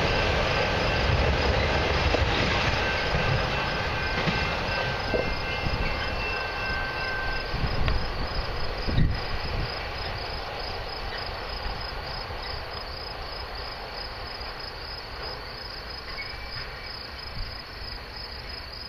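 Tail end of a long freight train of autorack cars rolling away on the rails, its rumble fading steadily, with a faint high squeal in the first several seconds and a single clank about nine seconds in. Crickets chirp steadily underneath and become the main sound as the train dies away.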